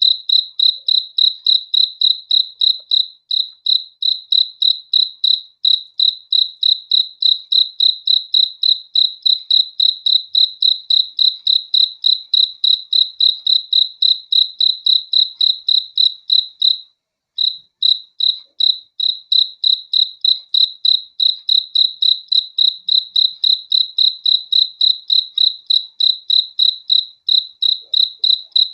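A cricket chirping in a steady, even rhythm of about three high chirps a second, with a brief break about 17 seconds in.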